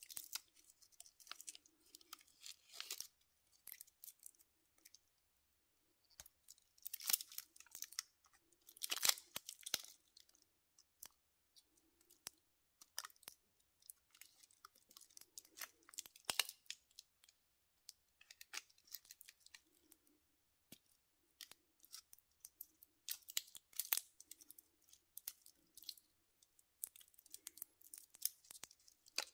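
Clear protective plastic film being peeled off a stainless steel watch bracelet and clasp: irregular crinkling and crackling in short bursts, with small clicks from the metal links being handled.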